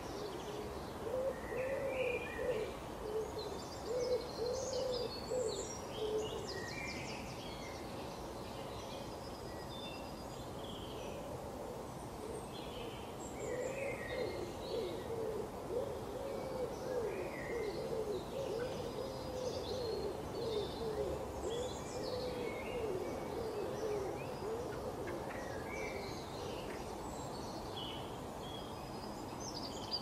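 Birds calling outdoors: a low, wavering hoot repeated several times a second, in a short run in the opening seconds and a longer run through the middle, with short high chirps of small songbirds scattered throughout.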